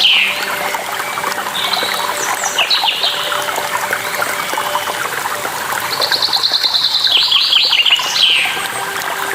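A songbird singing over steadily running water. Its phrase of quick repeated high notes steps down in pitch at the start and comes again about six to eight seconds in, with shorter calls around two to three seconds in.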